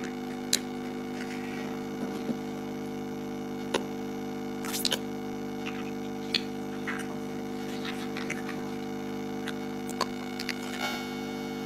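Steady electrical mains hum under scattered sharp clicks and light knocks of chunky plastic toy building blocks being pressed together and handled, with a small flurry of clicks near the middle.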